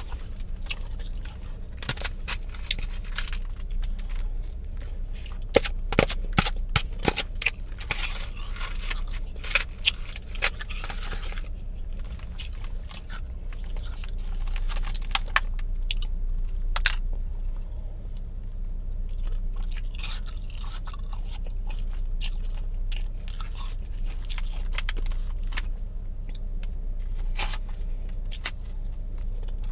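Mouth chewing and crunching powdery freezer-frost ice, a dense run of crackly crunches for roughly the first ten seconds, then sparser, quieter bites.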